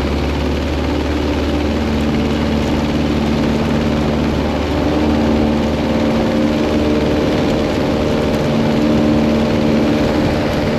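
Aeronca Champ's engine and propeller running steadily at high power on the takeoff, heard from inside the cockpit with wind rush. Its drone shifts in pitch and grows a little louder about five seconds in, as the plane lifts off and climbs.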